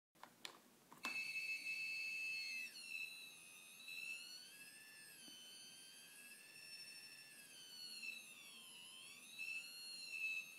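Buzzer driven by an Arduino as a home-made theremin, its pitch set by a photoresistor. After a few clicks it starts a high-pitched tone about a second in, holds it steady, then slides up and down in pitch as a hand shades the light sensor.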